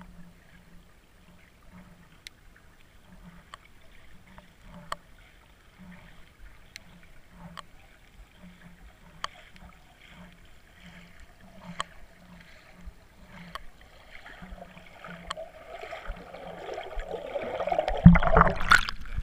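Underwater sound picked up by a GoPro inside its waterproof housing: faint muffled water noise with scattered sharp clicks and a soft low pulse about one and a half times a second. The noise builds near the end into loud splashing and knocking at the camera.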